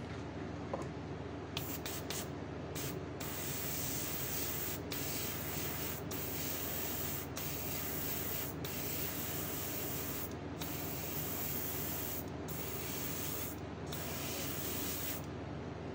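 Airbrush spraying paint, a hiss that starts about a second and a half in and stops shortly before the end. The trigger is let off for a moment every one to two seconds. A steady low hum runs underneath.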